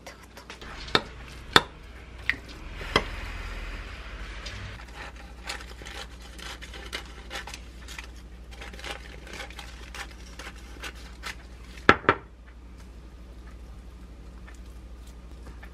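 Kitchen handling sounds: sharp clinks of ceramic bowls and utensils on a counter, then kitchen scissors cutting through sheets of dried laver with a quick run of small crisp snips and ticks. Two more loud clinks follow, then the softer scraping of a metal spoon scooping fried rice onto the laver.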